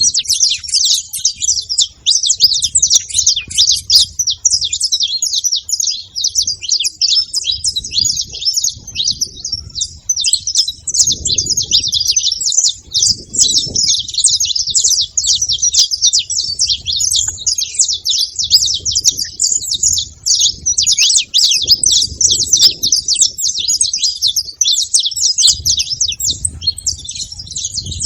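Saffron finches chirping rapidly and without pause, a dense stream of short, high notes crowding one over another.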